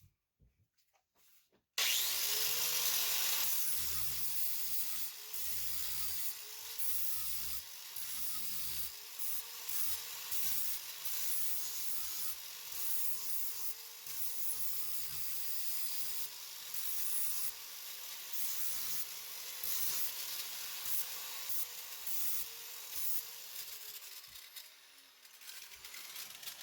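A power grinder running against the steel gauge wheel arm, cleaning the metal back before welding. Its motor whine wavers as the tool is pressed into the work. It cuts in suddenly about two seconds in and fades near the end.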